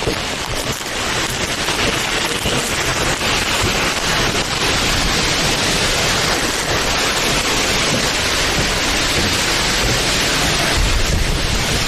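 Heavy tropical downpour: a steady, loud hiss of rain close to the microphone, with a brief low rumble near the end.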